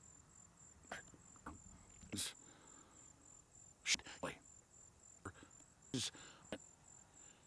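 Crickets chirping in a steady, high, finely pulsed trill. A man makes several short breathy vocal sounds between words over it.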